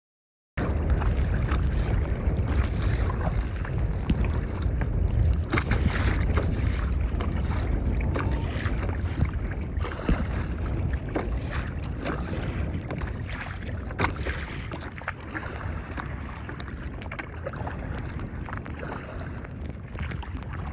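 Wind rumbling on the microphone over choppy open water, with small splashes and slaps of water against the kayaks throughout. It starts abruptly about half a second in, after a brief silence.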